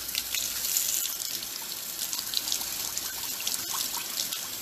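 Kitchen faucet running steadily, water splashing over a head of iceberg lettuce being rinsed under it.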